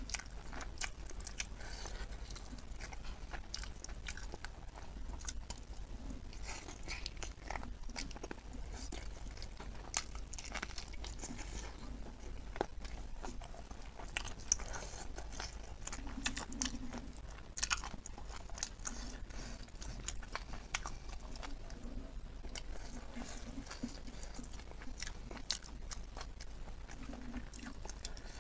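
Close-miked eating of pork: wet chewing and smacking with many small clicks and crunches, the food handled with bare fingers. A steady low hum runs underneath.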